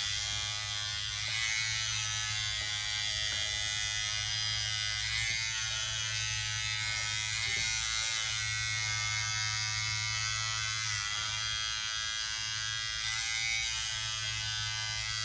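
Small AA-battery-powered vibrating facial massager buzzing steadily as its head is pressed against and moved over the skin of the face, the pitch wavering slightly.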